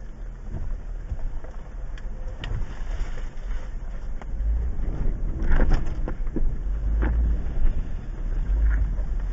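2015 Jeep Wrangler Unlimited Rubicon running at low revs as it crawls over a rocky dirt trail, heard from inside the cabin: a steady low rumble with scattered knocks and rattles as it jolts over the bumps, the loudest of them a little past halfway.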